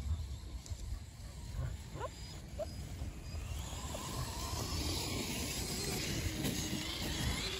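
Traxxas Maxx 4S electric RC monster truck driving across grass: a rushing noise of motor and tyres that swells from about halfway and holds, over a low rumble of wind on the microphone.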